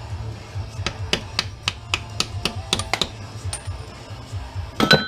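Hammer tapping on metal to drive a piston out of a small air compressor: a quick run of light strikes, about four a second, then a louder ringing metallic clang near the end.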